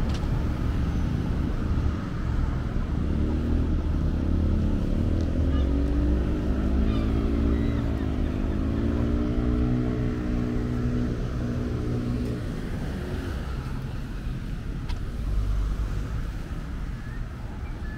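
Street traffic: a motor vehicle's engine running close by over a steady low rumble. Its pitch dips about eight seconds in, rises again, and the engine sound dies away a few seconds later.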